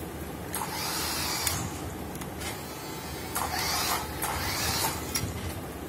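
Electric drive motor of a remote-control toy Formula 1 car whirring in two bursts as it is driven, about half a second in and again around three and a half seconds in, the second rising in pitch as it speeds up.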